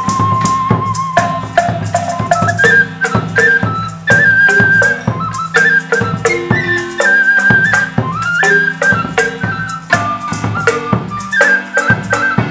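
Traditional Guatemalan ensemble playing: a small flute carries a wavering melody over steady drum strokes and rattles.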